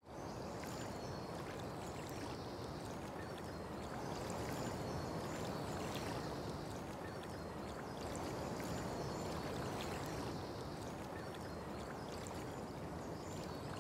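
Steady outdoor ambience: an even rushing noise, with faint high chirps recurring through it.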